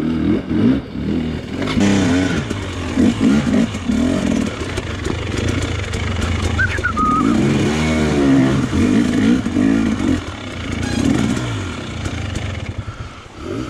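Dirt bike engine revving up and down in short, uneven bursts as the bike is worked slowly through a rocky creek crossing.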